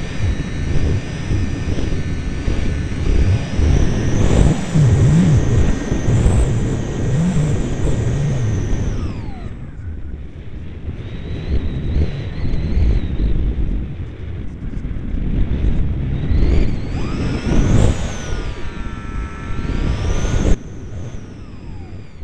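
Radio-controlled model airplane's motor and propeller whining, heard from on board with wind buffeting the microphone. The whine glides down and stops a little before halfway, leaving only wind rush while the plane glides. It comes back about three quarters of the way through, rises and falls with the throttle, and cuts off suddenly near the end.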